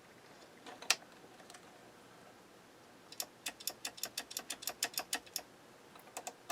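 Amplifier power switch being clicked on and off repeatedly: one click, then a quick run of small mechanical clicks about five a second, and a few more near the end. The switch is showing no continuity and is taken to be faulty.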